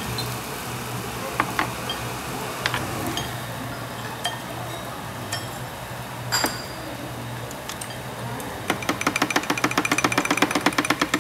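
Metal tongs and scissors clinking against stone bowls over a steady low hum. Near the end comes a rapid run of sharp clicks, about ten a second.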